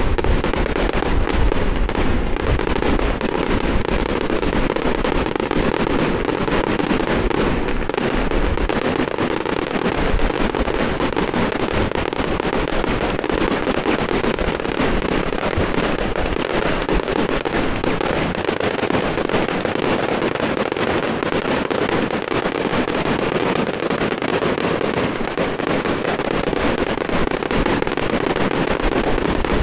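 A dense, continuous barrage of firecrackers going off, countless small bangs running together into one steady crackle with no pause.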